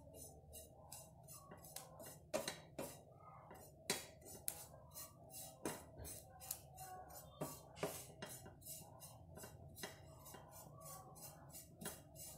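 Spatula scraping and knocking in a non-stick frying pan while stirring a dry, shredded mixture: irregular sharp clicks and scrapes, a few a second, over a steady low hum.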